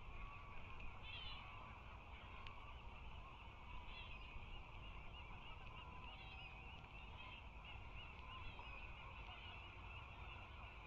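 Ospreys calling at the nest: a long series of short, high, repeated chirps, over a steady low rumble.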